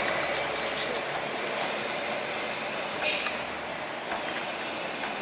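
A diesel cargo truck passing through a bend, with steady engine and road noise. About three seconds in there is one short, sharp hiss of air from its brakes, and a few faint squeaks in the first second.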